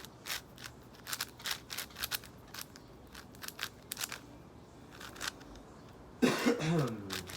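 Plastic layers of a YJ MGC 6x6 speed cube being turned, a quick irregular run of sharp clicks and clacks. Near the end a loud voice cuts in for about a second.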